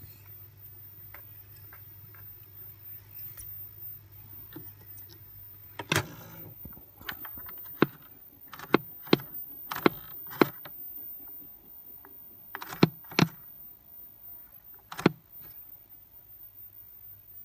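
Sony TC-102 reel-to-reel tape recorder running with a steady hum. From about six seconds in the hum stops and a series of about nine sharp mechanical clicks follows from its function lever and record button being worked. The hum returns near the end.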